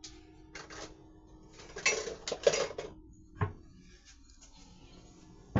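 Dishes and utensils being handled: a few short clatters, the busiest about two seconds in, then a sharp knock near the end.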